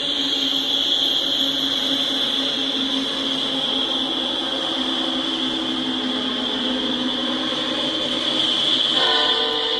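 Two BNSF diesel-electric freight locomotives passing, engines running with a steady low drone and the rumble of the train, over a constant high-pitched ringing tone. A horn sounds about nine seconds in.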